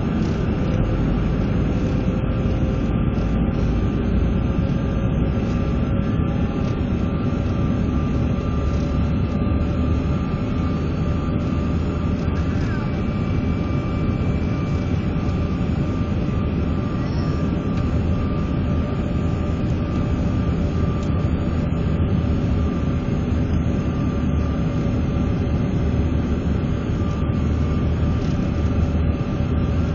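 Steady roar of a jet airliner's engines and rushing air heard inside the passenger cabin on the approach to landing, with a few steady whining tones above the low rumble.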